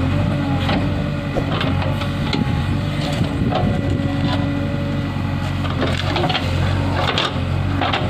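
JCB backhoe loader's diesel engine running steadily under load while the rear bucket digs. Irregular sharp cracks and knocks come through it as the bucket breaks through dry brush and roots.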